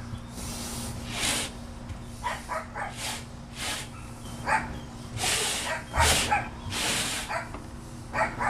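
A dog barking in short bursts, with repeated scratchy strokes of a brush being dragged over cloth between the barks.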